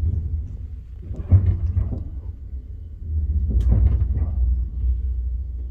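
Low, steady rumble of a slowly moving passenger train, heard from inside the carriage. Two brief, louder noises rise over it, about a second in and again about three and a half seconds in.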